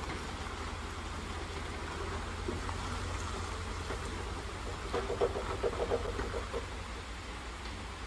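Log truck's diesel engine running slowly under load as a steady low rumble, with a short cluster of quick, higher-pitched sounds between about five and six and a half seconds in.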